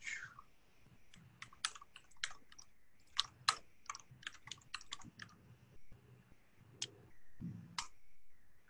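Faint keystrokes on a computer keyboard, typed in short irregular runs of clicks.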